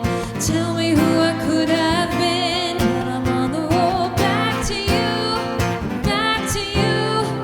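Acoustic band music: a strummed acoustic guitar under a sustained melody line with vibrato.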